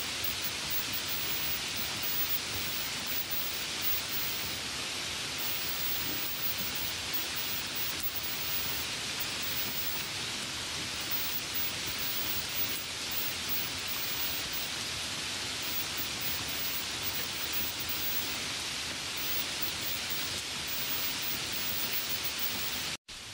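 Steady light rain, an even hiss strongest in the upper range. It cuts out for a split second near the end.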